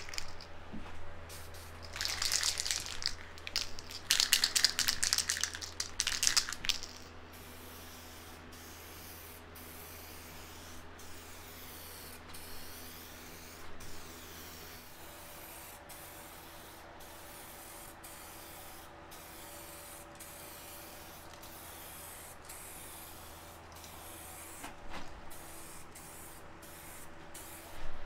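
SprayMax 2K aerosol spray can hissing in several short passes over the first seven seconds as the final coat goes onto the fairings. A faint steady hum follows, and a brief hiss comes again at the very end.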